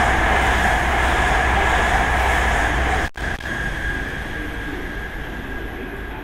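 An N700S Shinkansen train passing through the station at speed: a loud rush of air and wheel noise. The sound cuts out for an instant about three seconds in, then fades as the train moves away.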